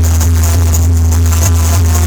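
Loud music with a deep, steady bass.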